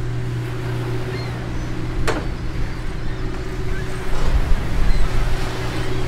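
Steady low mechanical hum of a running engine at the dock, with a single sharp click about two seconds in and irregular low rumbling in the second half.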